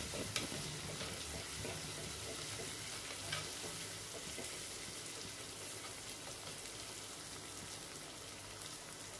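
Sliced onions sizzling in hot oil in a clay pot while a wooden spatula stirs them, with a couple of light knocks. The sizzle grows slowly quieter.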